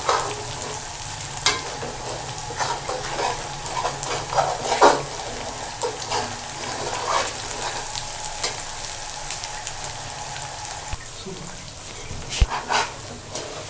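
Onions frying in cooking oil, with a steady sizzle and irregular scraping and clicking of a utensil against the pan as they are stirred to brown.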